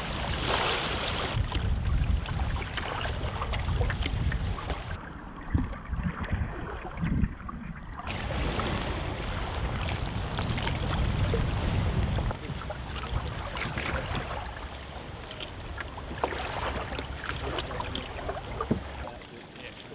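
Canoe paddling on a choppy loch: water splashing and lapping against a wooden cedar-strip canoe as the paddle dips, with wind rumbling on the microphone.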